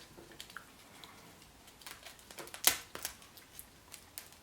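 A Chupa Chups surprise egg being handled and unwrapped: scattered clicks and crinkling wrapper noises, with one sharp snap a little past the middle.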